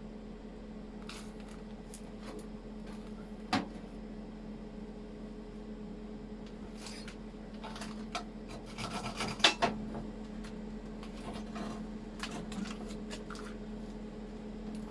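Intermittent scraping and a few sharp knocks on metal, loudest around the middle, over a steady low hum.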